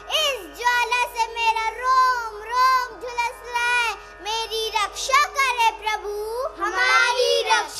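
A young girl chanting a verse through a stage microphone in a high, sing-song voice, with long held notes that slide up and down, over a low steady hum.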